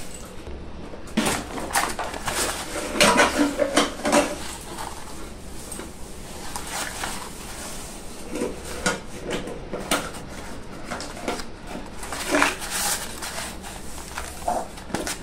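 Small cardboard biscuit box, a Dark Fantasy Choco Fills pack, handled and turned over in the hands among plastic biscuit packets: irregular crinkling, rustling and light taps, loudest from about one to four seconds in, with another flurry near the end.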